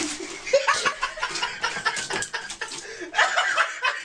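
A person laughing in short, broken chuckles.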